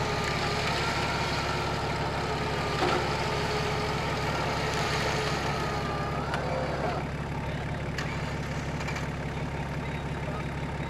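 Off-road vehicle engines running steadily while a stuck Suzuki Vitara is pulled out on a rope, with a wavering whine over them that stops about seven seconds in.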